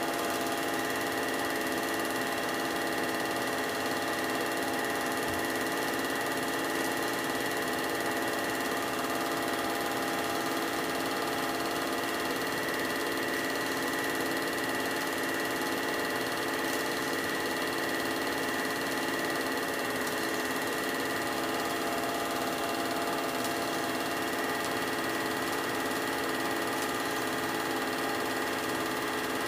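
Film projector running: a steady mechanical whirr that does not change.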